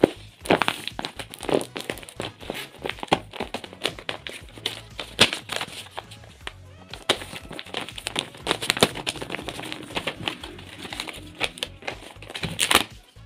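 Clear plastic film crinkling and a paper sheet rustling as hands handle them, in irregular crackles, over background music.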